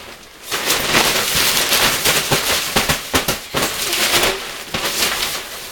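A children's pop-up play tent rustling, crackling and scraping as the person inside shuffles it along the floor, a loud dense run of crackles that starts about half a second in and dies down near the end.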